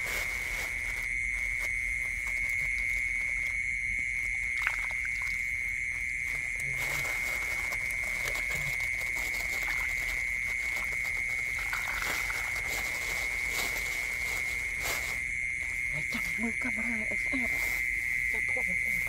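Steady high-pitched night chorus of rice-field creatures, one unbroken shrill tone, with light rustling and splashing as hands work through grass, a plastic bag and shallow muddy water.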